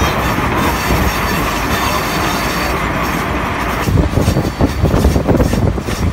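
Train carriage running along the rails, heard from a window of the moving train on a curve: a steady rumble of wheels on track with faint wheel squeal. About four seconds in the sound turns rougher and more gusty.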